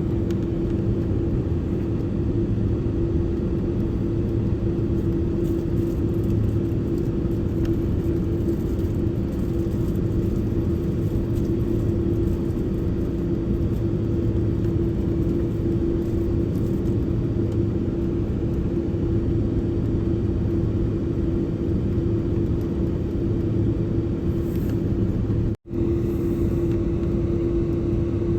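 Jet airliner cabin noise in flight: a steady rumble of engines and airflow with a constant low hum. The sound drops out for an instant about 25 seconds in.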